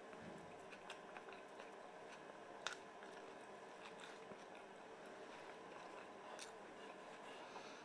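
Faint close-up eating sounds: a man biting and chewing boiled potato, with small wet mouth clicks and one sharper click a little under three seconds in, over a low steady room hum.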